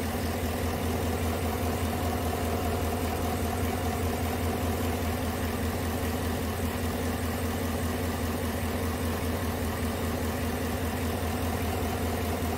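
2018 Chevrolet Tahoe's V8 engine idling steadily on a test run after new spark plugs and injectors were fitted to cure a misfire (P0300, cylinder 8 injector code), running smoothly with no stumble heard.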